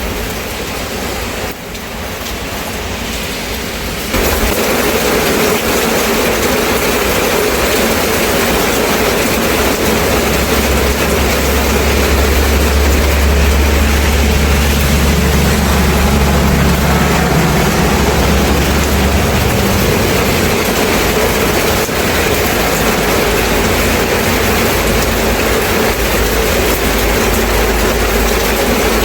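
Steady rain. About four seconds in, a much louder, continuous passing-vehicle noise takes over, with a heavy low rumble that is strongest around the middle and then eases.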